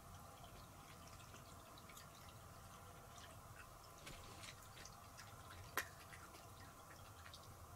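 Near silence: room tone with faint, irregular small ticks and one sharper click a little before six seconds in.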